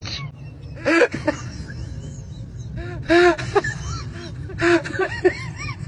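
Baby-like crying in short wails that rise and fall in pitch, loudest about a second in and again around three seconds, over the steady low rumble of a moving metro train.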